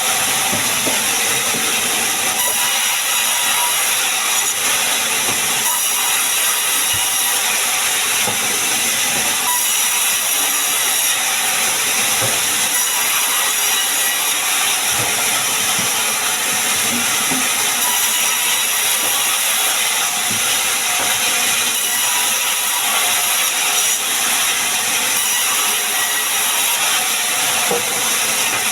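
Sawmill saw running steadily as it cuts sengon wood into beams, a loud continuous noise with a high, steady whine.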